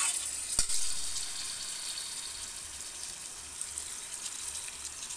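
Raw mutton pieces sizzling as they drop by hand into hot oil and fried ginger-garlic paste in an aluminium pot: a steady hiss that slowly fades, with a sharp click about half a second in.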